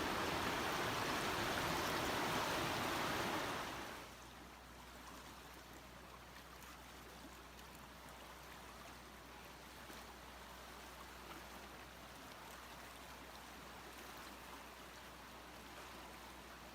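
Rushing water, a loud even rush for about four seconds that cuts off suddenly to a much fainter water hiss with a steady low hum underneath.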